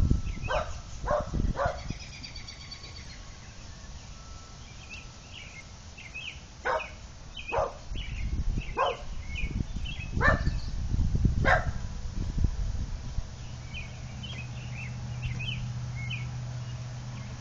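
Small dog giving short single barks: three in quick succession at the start, then five more spread over about five seconds, excited greeting barks at arriving visitors. Birds chirp faintly between the barks, and a low steady hum sets in near the end.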